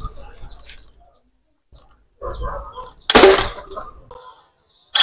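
Homemade PVC combustion toy gun, fuelled with thinner and fired by a spark igniter, going off with a sharp bang about three seconds in and again at the very end, launching 8 mm steel balls: the gun is firing again after being stuck.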